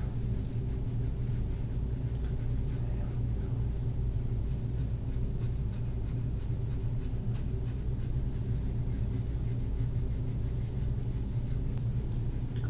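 Steady low hum with faint, light scraping strokes over it: soft-tissue combing on the skin of a back.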